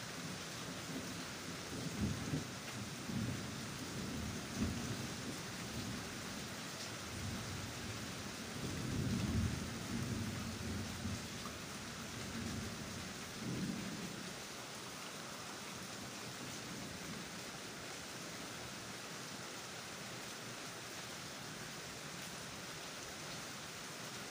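Steady hiss of rain, with low rumbles that swell and fade several times during the first half and then stop, leaving only the rain.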